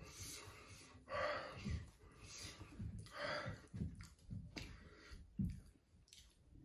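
A man chewing a hot chicken wing and breathing out heavily through his mouth, several breaths with the loudest about one and three seconds in.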